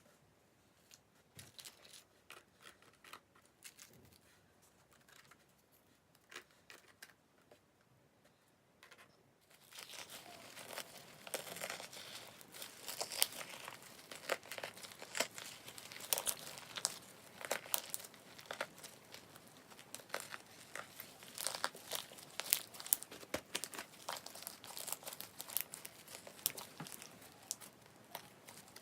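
Slime mixed with crushed Banana Kick corn-puff snacks, worked by hand: a few faint sticky clicks at first, then from about ten seconds in a dense run of crackling and crunching as the snack pieces break inside the slime.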